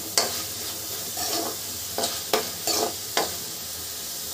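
A steel spoon scraping and stirring chopped onion and capsicum around a metal kadai, about half a dozen strokes, over a steady sizzle of the vegetables frying in butter and oil. Near the end only the sizzle goes on.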